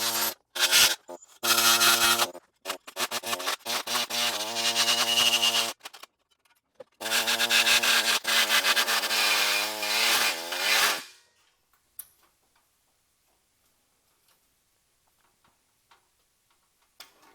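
Cutoff wheel running and cutting sheet-metal body panel in several bursts of a few seconds each, a steady whine with a harsh hiss over it, sagging slightly under load. It stops about two-thirds of the way through, leaving only a few faint clicks.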